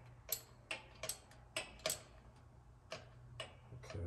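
Hand ratchet on a 12 mm socket clicking in separate sharp ticks, about two a second and unevenly spaced, as a bolt is snugged up.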